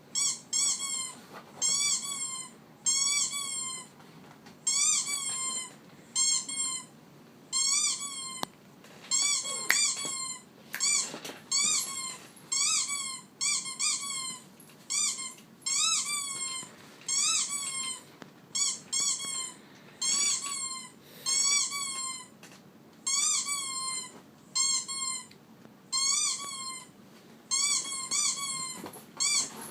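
A dog making a short, high squeak over and over, about once a second, each squeak rising then falling in pitch.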